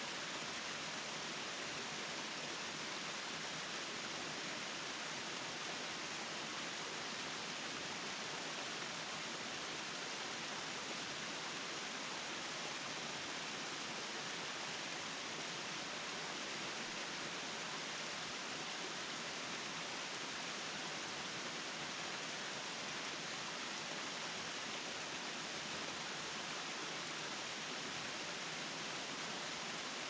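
A waterfall and the stream below it running: a steady, even, hissing rush of water that does not change.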